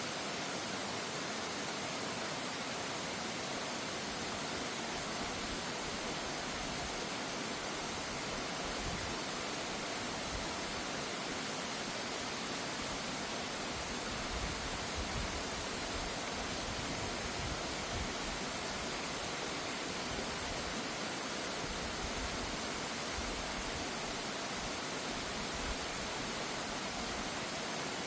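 Mountain stream rushing steadily over rocks, an even hiss of water with no let-up.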